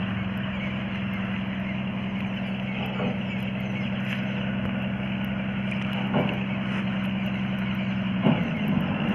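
Engine running at a steady speed with an even hum, close by, as the vehicle rolls slowly over a rough dirt road. A few brief knocks break in, the sharpest near the end.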